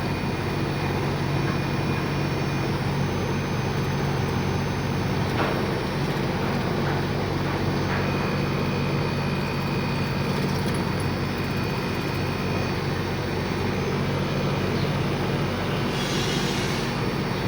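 Carrier air conditioner motor running with a steady low droning hum: the noise it makes once it is no longer held down, the sign of a faulty motor.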